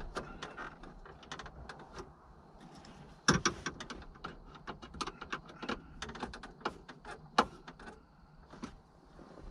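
Irregular clicks, taps and rattles of plastic car interior trim and small parts being handled and fitted, with a louder knock about three seconds in and another later on.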